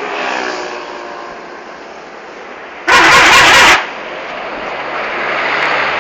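Buses passing on a road: steady engine and road noise, broken about three seconds in by a sudden, very loud blast of harsh noise lasting just under a second, with the traffic noise growing louder again near the end.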